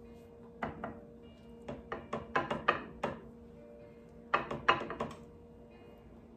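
Flour-dredged cod fillets handled and patted against a plate to knock off the excess flour: irregular clusters of soft knocks and thunks, loudest about two and a half and four and a half seconds in. Background music plays throughout.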